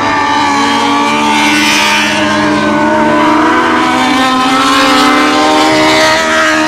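Several mini sprint race cars running hard around a dirt oval, their engines overlapping at different pitches that rise and fall as the cars pass through the turn.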